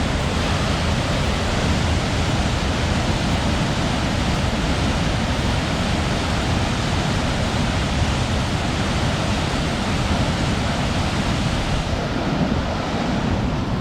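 Floodwater rushing steadily, with wind buffeting the microphone.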